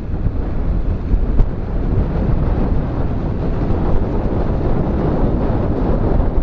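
Massey Ferguson tractor engine running while ploughing, growing louder after about two seconds, with wind buffeting the microphone.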